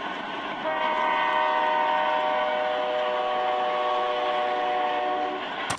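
A train horn blows one long steady chord of several tones, starting under a second in, heard on a hissy cassette tape recording. It cuts off with a click near the end.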